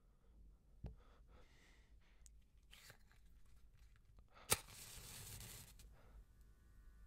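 A wooden match struck on its matchbox about four and a half seconds in: one sharp strike, then about a second and a half of hissing as the head flares and catches.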